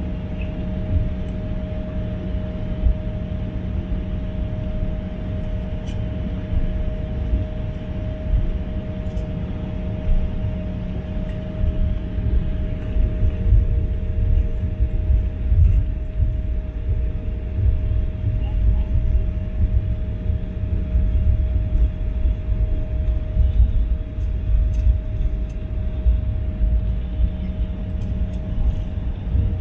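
Jet airliner taxiing, heard from inside the cabin: a steady engine hum with a few held tones over a low, uneven rumble from the wheels rolling on the taxiway. The rumble grows rougher about a third of the way in.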